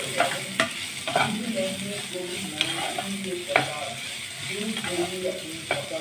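Steel spatula stirring diced onions and green chillies sizzling in oil in a nonstick frying pan, with a sharp scrape or tap of the spatula on the pan about once a second. The onions have just gone into the hot oil to fry.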